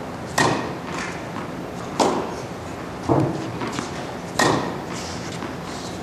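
Tennis balls being hit with a racket, backhand drives fed by a ball machine: four sharp hits about a second to a second and a half apart, with softer knocks between them.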